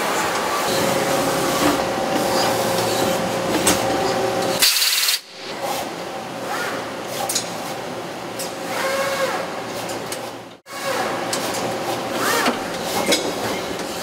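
Doosan PUMA TW2100M-GL twin-spindle turning center and its gantry loader running: a steady mechanical hum with scattered clicks and short rising servo whines. The sound drops out briefly about five seconds in and again near eleven seconds.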